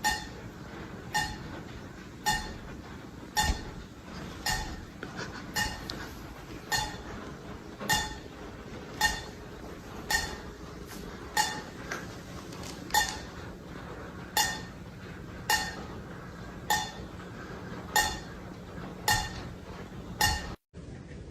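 Sharp clinks with a short ringing tone, like something hard striking glass or metal, repeating evenly about once a second.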